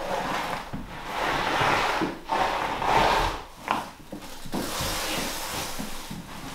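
Roll of flooring underlayment being unrolled and pushed out across the subfloor: a rustling, sliding rub that comes in about three long swells.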